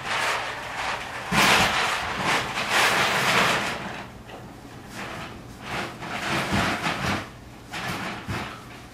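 A wooden rocking horse being pushed about on a hardwood floor, rocking and scraping in several uneven bursts with a few low knocks.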